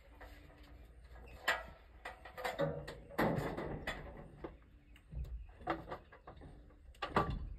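Irregular knocks and rattles of ladders and lumber being handled, with one longer clatter about three seconds in.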